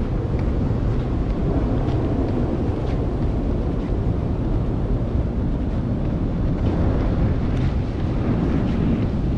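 Steady low rumble of wind on a body-worn GoPro HERO8's microphone while walking along a street.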